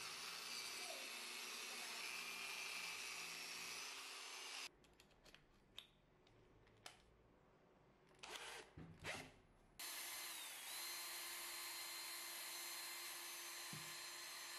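A power tool spins a wire cup brush against the rusty cast-iron body of a charcoal iron, scouring off rust. It stops about a third of the way in, leaving a few clicks and short knocks. About two-thirds in, a cordless drill starts and runs steadily, spinning a wad of steel wool against the inside of the iron.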